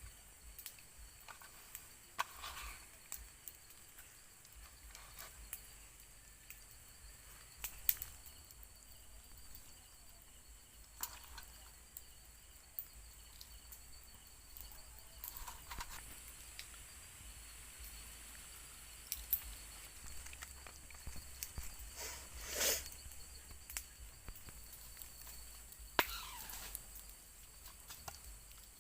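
Night-time forest insect chorus of crickets, a steady high-pitched trill, with scattered clicks and short rustles over it; the loudest is a brief rustle about two-thirds of the way through.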